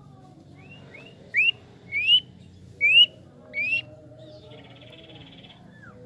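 Sirtu songbird calling: four loud, rising whistled notes about three-quarters of a second apart, followed by a faint buzzy trill and a short falling note.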